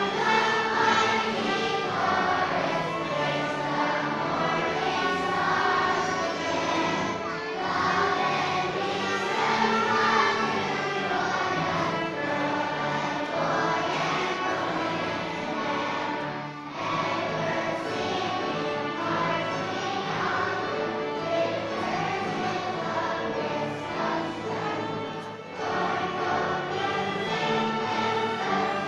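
Children's choir singing together, accompanied by a school string orchestra of cellos, basses and violins, with short breaks between phrases.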